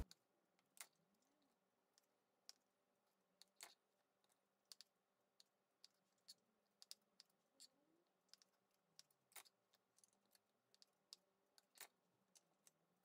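Near silence broken by faint, scattered clicks of a knife meeting a plastic cutting board as cherry tomatoes are halved.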